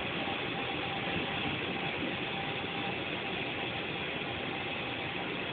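Steady hum and hiss inside a New York City subway car standing at a station, with a faint steady tone under it.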